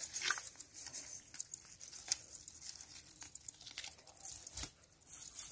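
Irregular small taps, slaps and rustles of live tilapia and a wet cast net being handled as the fish are sorted into a bucket, with one slightly louder knock near the end.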